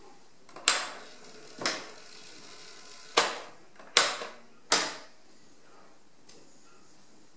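Piano-key transport buttons of a Tandberg TCD 310 cassette deck pressed in turn, five sharp mechanical clunks over about four seconds as the tape mechanism latches into each mode.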